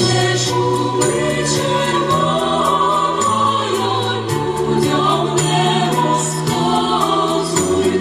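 A choir singing over instrumental backing with a steady beat.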